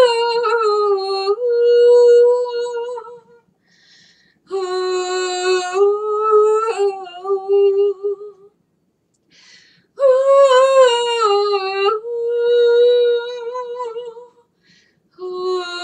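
A woman singing unaccompanied, wordless held notes with a slight waver, in three phrases of about four seconds each with short breaths between, and a fourth beginning near the end.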